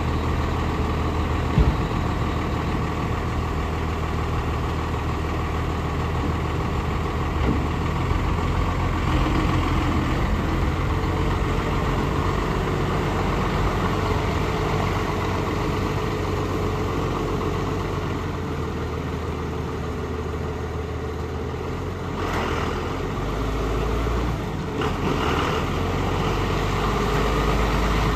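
Ford F800 dump truck's engine idling steadily.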